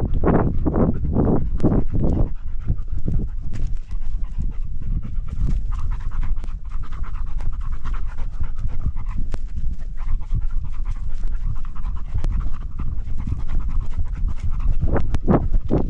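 Labrador retriever panting hard and fast right at the harness-mounted camera, about two to three breaths a second, strongest at the start and again near the end, with a steady low rumble underneath.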